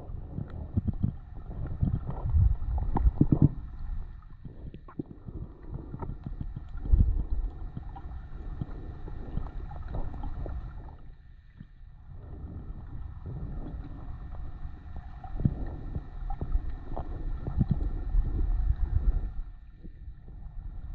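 Muffled underwater sound picked up by a camera in a waterproof housing: a low, irregular rumble of moving water that swells and fades, with scattered faint clicks.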